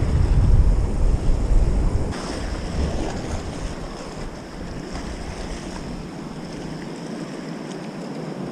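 Sea waves washing against shoreline rocks, with wind rumbling on the microphone that is heaviest for the first two seconds and then eases into a quieter, steady wash.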